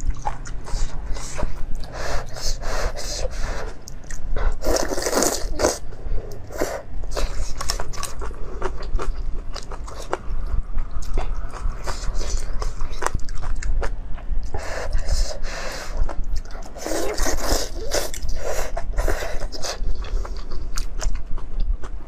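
Close-miked eating of rice noodles: repeated wet slurps as noodles are drawn into the mouth, with chewing between them. The loudest slurps come about five seconds in and again around seventeen to nineteen seconds.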